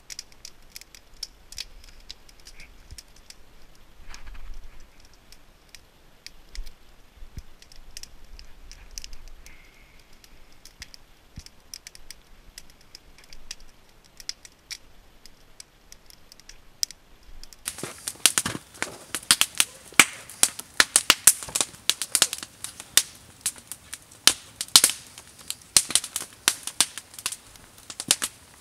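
Wood fire crackling and popping: faint, scattered pops at first, then from about two-thirds of the way through, loud, rapid, irregular crackling.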